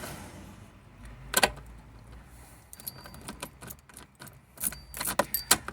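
Car starter being engaged without the engine catching, a failed start: one sharp click, then a run of irregular clicks and clacks from about three seconds in. The mechanic suspects the starting noise comes from a worn flywheel ring gear or starter drive (bendix).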